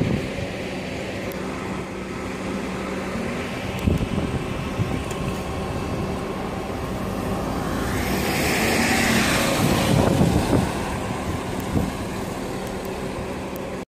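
City bus engines running as buses move through a bus station, with a Mercedes-Benz Citaro passing close. A long hiss rises and fades about eight seconds in, and there are a few knocks.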